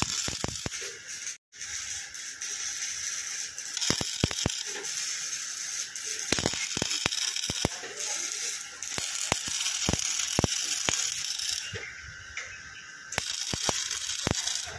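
Electric arc welding on steel: a steady crackling hiss from the arc, with scattered sharp pops. It cuts out for a moment about a second and a half in, and goes quieter for a second or so near the end before the crackle comes back.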